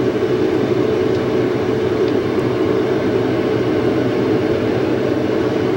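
Automatic car wash running its rinse cycle, a steady hiss of water spray and machinery hum heard from inside the car.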